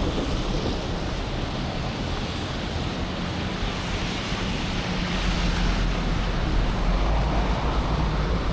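Snowy city street noise: vehicle tyres hissing through wet slush over a low traffic rumble, with wind buffeting the microphone, a little louder past the middle.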